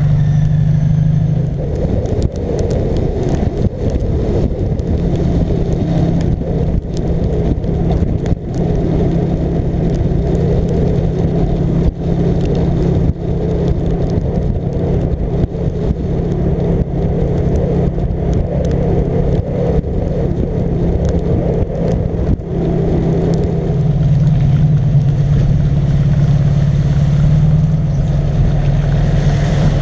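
Rewaco trike engine running steadily at road speed, with wind noise on the front-mounted microphone and scattered short clicks. About three-quarters of the way through the rushing wind noise eases and the engine's low hum stands out more clearly.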